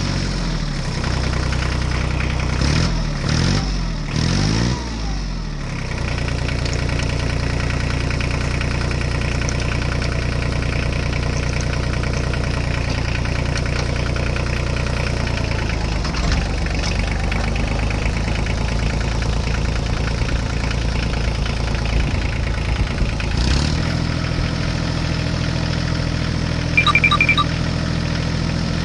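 Tractor engine sound idling steadily, with a few quick revs rising and falling a few seconds in. A short run of high beeps near the end.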